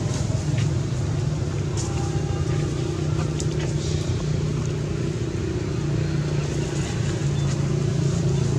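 A steady low engine hum, with a few faint short clicks over it.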